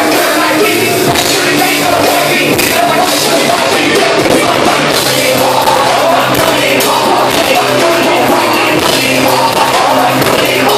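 A live rock band playing loud: electric guitar, drums and vocals through microphones, all dense and unbroken.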